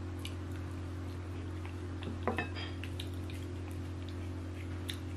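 Eating eba and egusi soup by hand from ceramic bowls: small clicks of chewing and fingers working the food, with one short ringing clink against a bowl about two seconds in, over a steady low hum.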